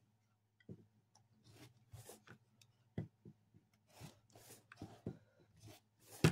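Rotary cutter blade rolling through batik fabric against a cutting mat along an acrylic ruler, a string of short cuts with the ruler shifting and knocking on the mat between them. A sharper knock comes about three seconds in.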